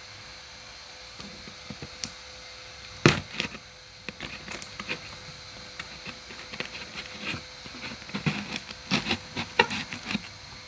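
A pointed tool scratching and piercing plastic packing tape on a cardboard box, making irregular short crackles and scrapes that grow busier near the end. There is one sharp knock about three seconds in.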